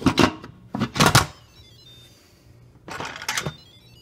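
Instant Pot lid clattering and scraping against the pot as it is fitted and turned to close. There is a run of loud knocks in the first second and another clatter about three seconds in.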